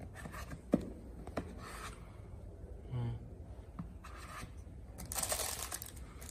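A few light clicks from items handled in a foam-lined plastic carrying case, then plastic wrapping rustling and crinkling from about five seconds in.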